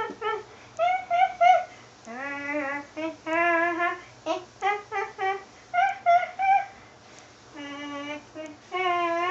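A child's high voice making wordless sing-song sounds: short held notes that bend up and down, in phrases of about half a second to a second with brief gaps.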